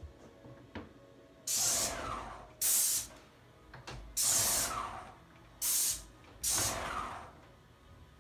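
Aerosol spray paint can sprayed in five short hissing bursts, each cutting in sharply and trailing off.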